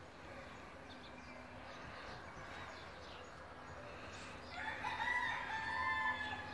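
A rooster crowing once, a long call of about a second and a half starting about four and a half seconds in, over fainter short high calls before it.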